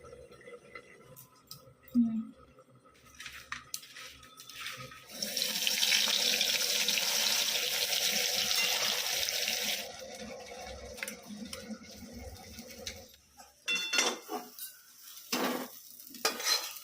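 Kitchen tap running into a sink for about five seconds, with small clinks of dishes before it and a clatter of utensils near the end.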